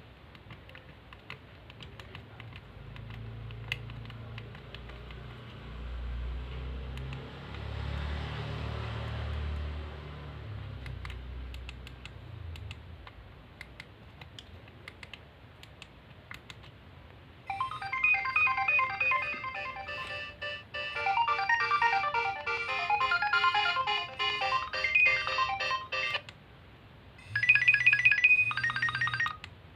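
Nokia 2300 mobile phone's speaker playing polyphonic ringtone melodies, bright synthesized notes. One plays for about eight seconds starting a little past halfway, stops abruptly, and a second begins about a second later. Before that, only faint clicks and a low hum.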